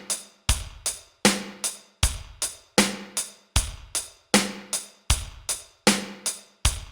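A drum-kit beat playing on its own, with bass drum and snare alternating in a steady rhythm of about two to three hits a second and no other instruments.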